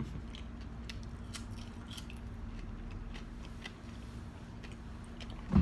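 Chewing french fries, with small, scattered mouth clicks. A single dull thump near the end is the loudest sound.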